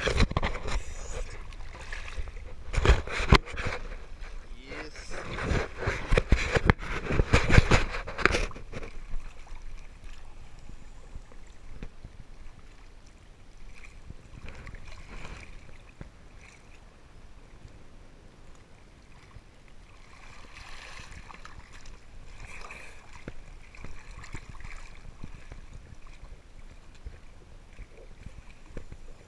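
Seawater sloshing and splashing around a camera held at the waterline, loud and choppy for the first eight or nine seconds, then settling to a quieter, steady wash.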